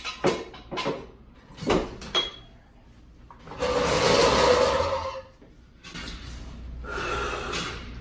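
Steel jack stand and floor jack being set under a car on a concrete floor: several sharp metal clanks in the first two seconds. About three and a half seconds in comes a louder rough scraping and rolling noise lasting over a second as the floor jack is pulled out, then a quieter rough scrape.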